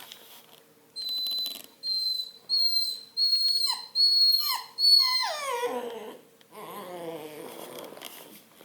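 Redbone Coonhound puppy whining: about six short, high-pitched whines, then a long whine that falls steeply in pitch into a lower, wavering moan.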